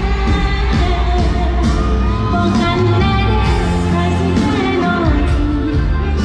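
A pop song with a singer's voice over a band, with a steady bass line and drum hits throughout.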